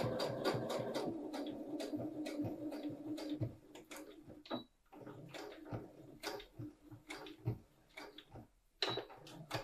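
Electric sewing machine stitching steadily, backstitching a little to lock the end of the topstitched seam, then stopping about three and a half seconds in. A few light clicks and taps follow.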